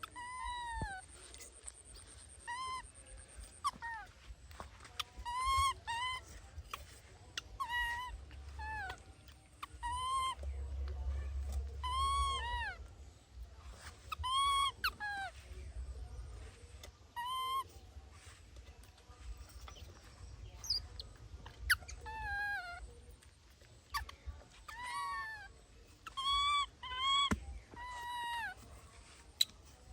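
Baby monkey crying over and over in short, high, arching squeals, one every second or two. A few sharp clicks come in the second half.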